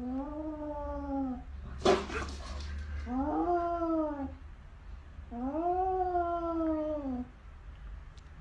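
A domestic cat caterwauling at its own reflection in a mirror: three long, drawn-out yowls, each rising and then falling in pitch, with a short hiss about two seconds in. It is a defensive threat call from a cat with its back arched.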